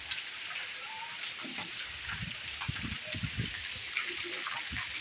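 Steady rain falling, a constant hiss, with irregular low thumps through the second half.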